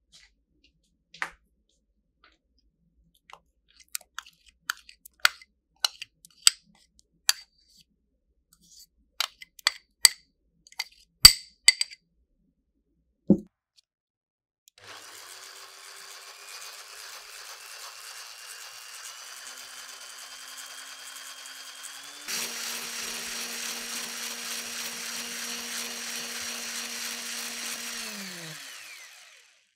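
A run of light clicks and taps, then a single knock. Then an electric hand mixer with a whisk beater starts whipping heavy cream in a glass bowl with a steady whine that rises slightly. About halfway through it steps up to a louder, faster speed, and near the end it winds down and stops.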